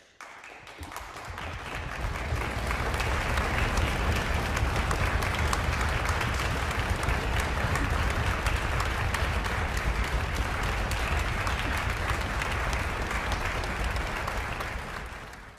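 Applause from many people, orchestra players among them: the clapping starts at once, swells over about two seconds into steady, dense applause, and fades out near the end.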